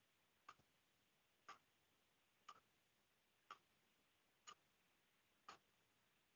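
Near silence with faint, sharp ticks evenly spaced about one a second.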